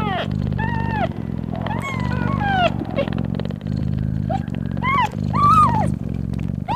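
A nursing mother cat purring steadily, with about eight short, high-pitched mews from her newborn kittens over it. The loudest mew comes about five and a half seconds in.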